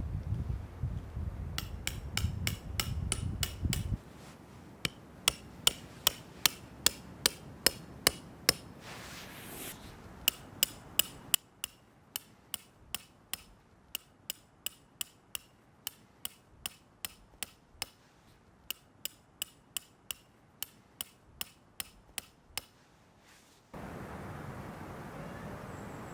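A hammer driving tent pegs: a steady run of sharp metallic strikes, about two to three a second, loud for the first several seconds and then softer, with short pauses between runs. Wind buffets the microphone at the start and again near the end.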